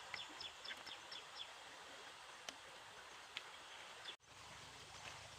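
A small bird chirping in quick short high notes, about four a second, for the first second and a half, over a steady faint hiss of outdoor ambience. A couple of sharp clicks follow, and the sound cuts out briefly about four seconds in before a low hum comes in.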